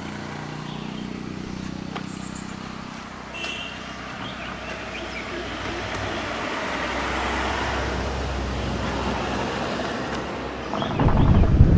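Car on a road: steady engine and tyre noise that swells from about six seconds in. Loud wind buffeting hits the microphone near the end.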